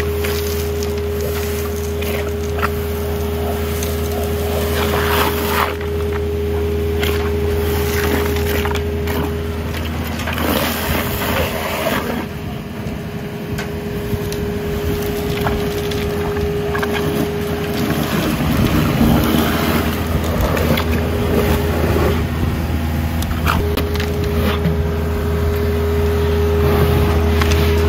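Boss Vac 4310 hydrovac's vacuum blower and engine running steadily, with a low hum and a higher steady tone, while the suction tube sucks wet dirt and stones out of a hole. Stones and clods clatter and rattle up the tube.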